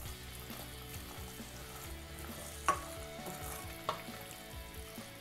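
Chicken and spice masala sizzling as it fries in a pressure cooker, with a spoon stirring it and clicking against the pot twice, about three and four seconds in. It is being sautéed until the raw smell of the freshly added chilli and coriander powders cooks off.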